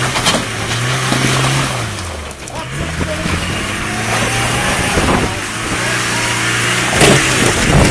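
Land Rover Discovery's engine revving up and easing off several times as it crawls over a rocky step, with a thump near the end.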